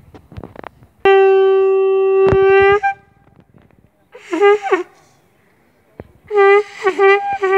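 A ceremonial horn is blown in three blasts. The first is a long steady note held for about two seconds. It is followed by a short blast and then a longer one, both with pitch that wavers and falls at the end. A single sharp knock sounds during the first note.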